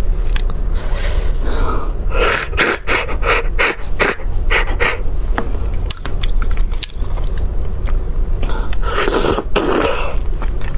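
Close-miked mouth sounds of sucking and slurping beef bone marrow out of a roasted bone, with many short wet smacks and clicks and a longer, louder slurp about nine seconds in. A steady low hum runs underneath.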